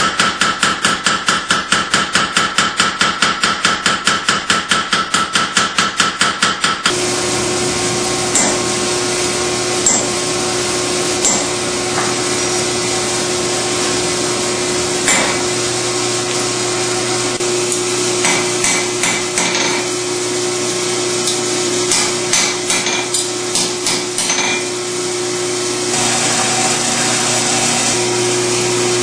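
Power hammer pounding a hot steel knife blade with fast, even blows, about four or five a second, which stop abruptly about seven seconds in. After that a steady machine hum runs, with scattered single hand-hammer taps on the steel blade.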